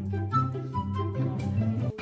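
Background instrumental music: a light tune over a moving bass line.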